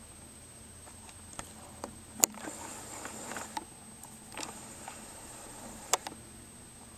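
Dogs wrestling and scuffling in snow, their paws scrabbling, with several sharp clicks: a loud one about two seconds in, another just before the end, and softer ones between. A faint steady high whine runs underneath.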